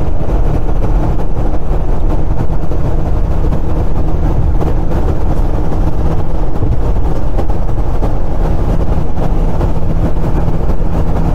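Cab noise of a VW T3 camper van cruising at motorway speed in fifth gear: the swapped-in 1.9 AHU TDI diesel running steadily under load, mixed with road and wind noise. It is a loud, unchanging low drone.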